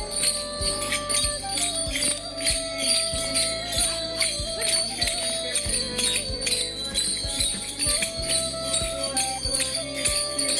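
Upbeat music with a steady beat, jingling bell-like percussion and a simple held melody.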